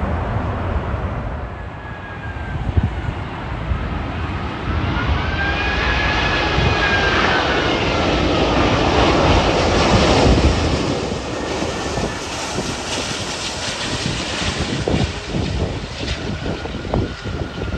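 Jet airliner passing by, its engines making a loud rushing noise with a whine that bends up and then down in pitch. The noise swells to its loudest about ten seconds in, then fades.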